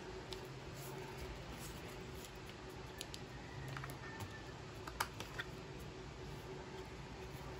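Hands handling an Apple Watch's paper and cardboard packaging and its charging cable: scattered light taps and clicks, the sharpest about five seconds in, over a steady low hiss.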